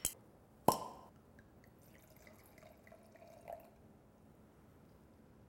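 A sharp click with a short ring about a second in, then white wine (Chenin Blanc) poured from the bottle into a wine glass, a faint trickle and glug that stops a little before four seconds in.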